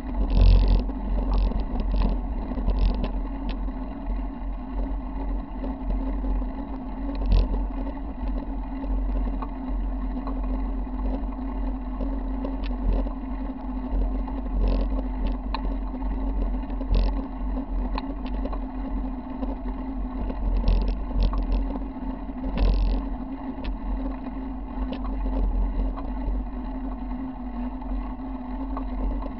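Mountain bike rolling down a rough paved road, heard through a handlebar-mounted camera: a steady low rumble of wind and road vibration on the microphone with a constant hum underneath, broken by short rattles and knocks from bumps every second or few.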